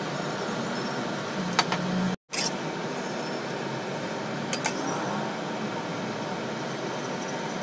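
Vegetables stir-frying in a wok: a steady sizzling hiss with a few sharp clinks of a utensil against the wok and a metal plate. The sound cuts out for an instant about two seconds in.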